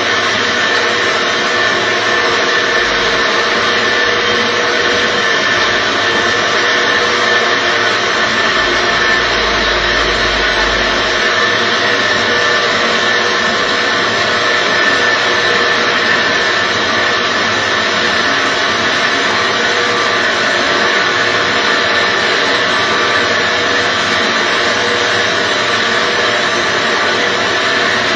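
Lotus seed coring machine running: a steady motor drone with a constant high whine, which does not let up.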